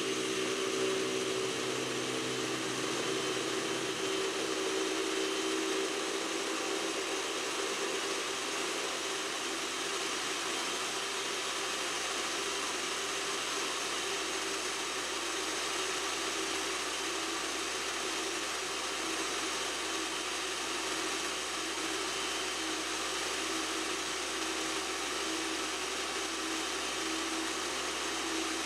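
Kenwood kMix food processor motor running steadily at speed, blending aquafaba, vinegar, salt and Dijon while oil is slowly drizzled in to form mayonnaise.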